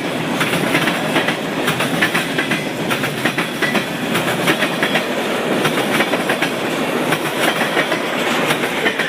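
Norfolk Southern freight train's cars passing at speed, the wheels clattering in a fast, uneven run of clicks over a steady rumble.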